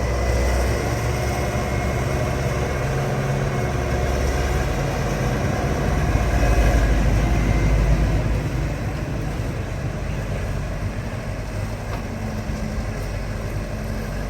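Excavator's diesel engine running steadily, swelling louder about halfway through as it takes load, then easing back.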